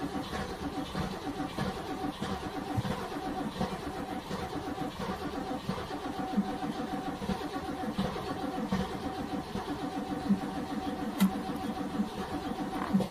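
NASCAR Cup stock car's V8 engine running with an uneven, pulsing rhythm, with a steady whine above it. It cuts off abruptly at the end.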